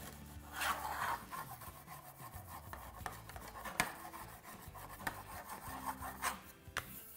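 Fondant smoother rubbed along the sides of a fondant-covered cake, smoothing the edges: soft, irregular rubbing strokes with a couple of light taps.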